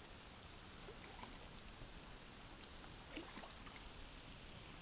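Very faint water sounds against the boat, close to silence, with a few light ticks scattered through.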